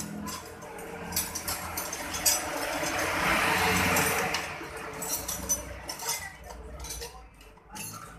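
Hands rubbing and scraping over the metal shell of a motorcycle exhaust muffler, patching a leak. Small clicks and clinks of a plastic bottle and cap being handled, with a louder stretch of rubbing about three to four seconds in.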